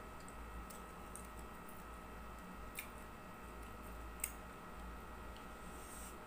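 Quiet hand-eating sounds: a few small sharp clicks and ticks as fingers pick up fried rice and dried fish from a plate, the two clearest about three and four seconds in, over a steady low hum.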